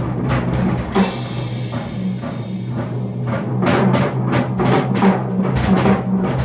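Free-jazz drumming: rapid, busy strikes on drums and cymbals, with one loud cymbal crash about a second in that rings on, over low double bass notes.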